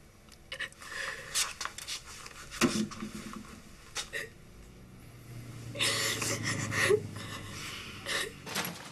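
A young woman sobbing in several irregular, breathy bursts, the loudest stretch about two-thirds of the way through.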